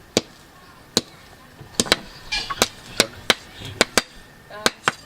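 A blacksmith hammering metal by hand: about eleven sharp, irregular hammer strikes, some in quick pairs.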